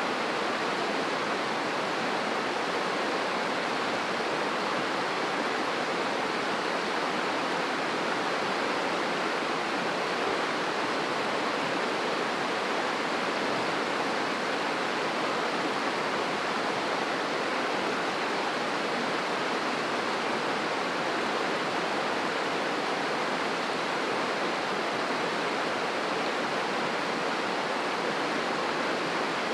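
River water rushing, a steady, unbroken roar of fast-flowing water.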